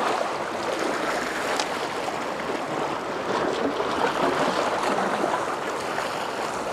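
Sea water washing and lapping in a steady wash.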